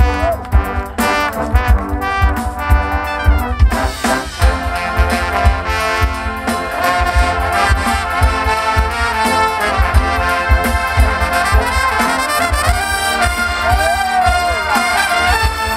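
Drum and bugle corps brass line playing a full-ensemble rock arrangement with sustained chords, while a drum kit keeps a steady beat underneath.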